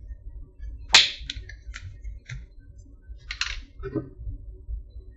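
Plastic screw cap being twisted open on a small drink carton: one sharp click about a second in, a few lighter clicks after it, and a short scratchy rustle of the carton being handled.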